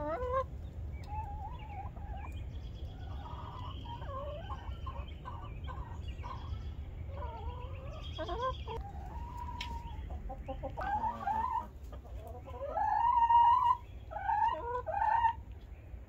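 Chickens clucking and calling, short varied calls throughout, with louder, drawn-out calls during the last few seconds.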